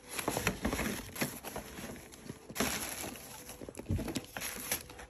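Crinkly white tissue-paper wrapping rustling and crackling as it is handled and pulled back inside a cardboard gift box, in irregular bursts with small clicks.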